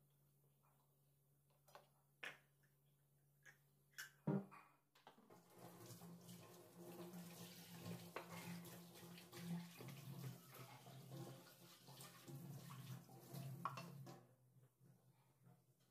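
Faint clicks and taps of a plastic onion chopper being handled, with a sharp knock about four seconds in. Then about nine seconds of steady, water-like rushing noise that stops near the end.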